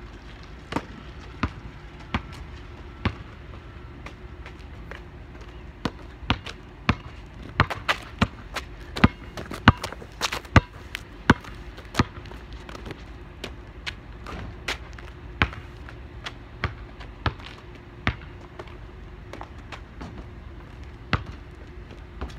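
Basketball bouncing on asphalt: a string of sharp, separate thuds, coming quickest, about one or two a second, in the middle of the stretch and fewer toward the end.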